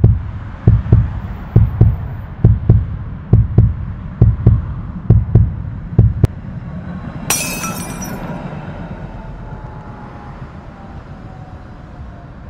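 Tram wheels clacking over rail joints in evenly spaced pairs, about one pair a second. Then a brief sharp hissing crash, and a low rumble with a faint falling whine that slowly fades.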